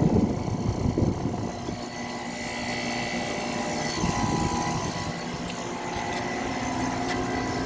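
Outdoor air-conditioner condensing units running, a steady hum with a few held tones. Low rumbling is strong in about the first second.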